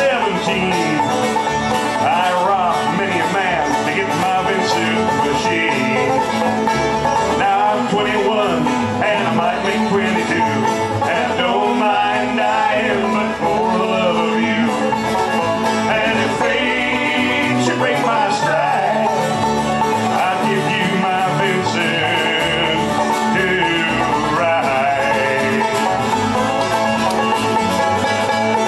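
Live acoustic bluegrass band playing an instrumental break: fast picked acoustic guitars over a bass, with no singing.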